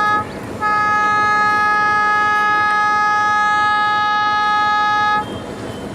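WDM-3A diesel locomotive's horn: the tail of a short blast at the start, then one long steady blast of about four and a half seconds that cuts off about five seconds in.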